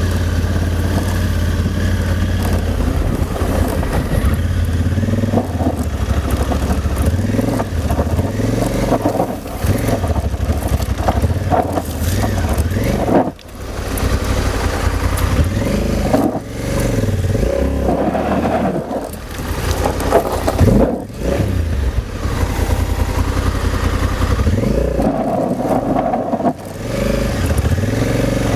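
Adventure motorcycle engine pulling at low speed on a rough gravel track, its pitch rising and falling with the throttle. Several times the sound drops away briefly as the throttle is closed, then picks up again.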